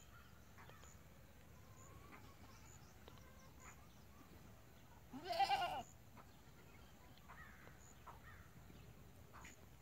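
A single loud animal call, bleat-like, about five seconds in and lasting under a second. Faint short chirps sound now and then around it.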